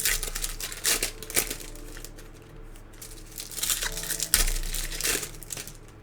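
Plastic trading-card pack wrappers being torn open and crinkled by hand, in two bouts of crackling, one at the start and another around the middle.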